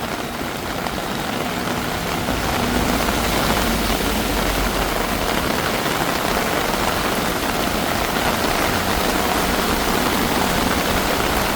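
Heavy tropical downpour: a steady, dense hiss of rain on the street, a little louder after the first two or three seconds, with a vehicle engine running low underneath in the middle of it.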